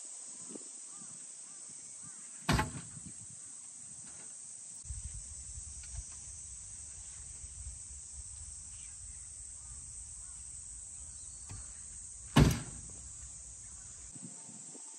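Two sharp wooden knocks about ten seconds apart, heavy timber boards striking a wooden frame as they are set in place. A steady high hiss runs throughout, with a low rumble through the middle.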